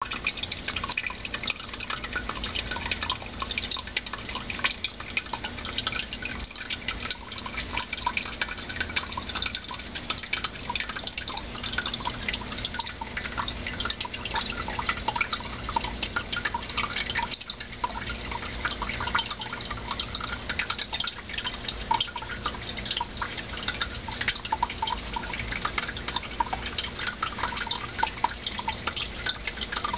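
Aquarium water bubbling and trickling without a break, a dense patter of small drips and bubbles, over a faint steady low hum.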